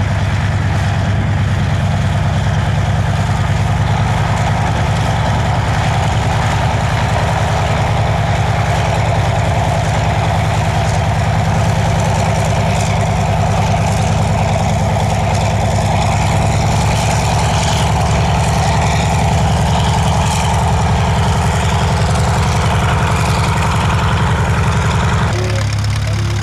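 Antonov An-2's nine-cylinder radial engine running steadily at low power as the big biplane taxis on grass. About a second before the end it cuts to a different, smaller biplane engine.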